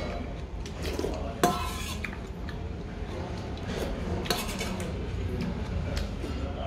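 Metal spoon clinking and scraping against a stainless steel bowl as soup is spooned up and sipped, with one sharp clink about a second and a half in.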